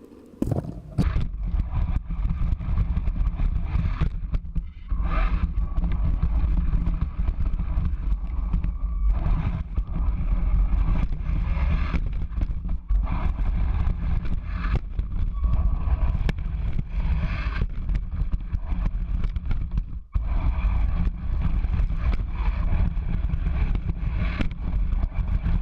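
Electric RC truck (Foxx S911) driving over a dirt track: a motor whine that comes and goes, with many knocks and bumps over a heavy low rumble.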